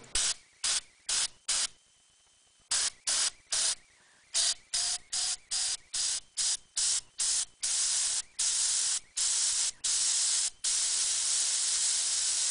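Compressed air from an air hose hissing into the inlet of a Paul Garnier spinning-top attitude indicator to spin up its gyro rotor. The air comes in short puffs, about three or four a second, with a brief pause near the start. The puffs lengthen into longer blasts and then a steady blast near the end.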